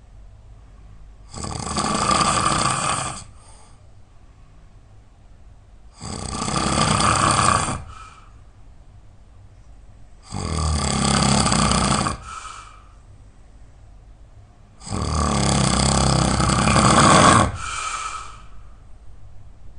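A person snoring loudly: four long snores, each about two seconds long and coming about every four to five seconds, each followed by a brief fainter sound.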